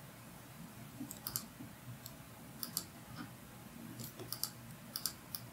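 Computer mouse clicking: about a dozen short, sharp clicks, several in quick pairs, faint over room tone.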